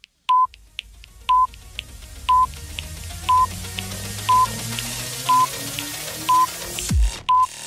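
Countdown timer sound effect: a short electronic beep once a second with a tick between each beep, over a synth riser that climbs steadily in pitch and hiss. A deep falling boom comes about seven seconds in.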